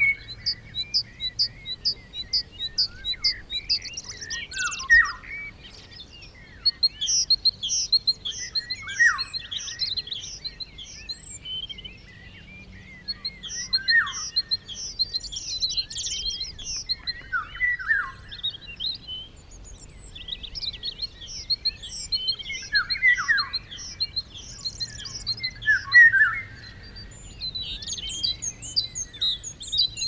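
Small songbirds singing: phrases of quick high chirps and trills, some notes sweeping downward, coming every few seconds with a couple of short lulls.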